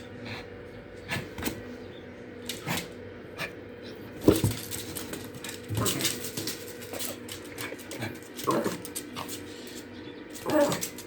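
A dog giving a few short whimpering calls among scattered knocks and clicks, over a faint steady hum.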